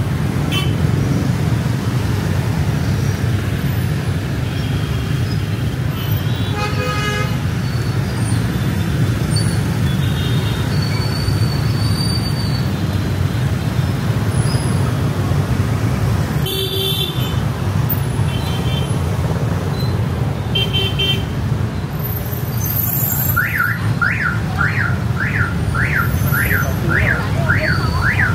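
Busy city street traffic with a steady rumble and several short vehicle horn toots. Near the end a vehicle alarm starts up, whooping up and down about twice a second.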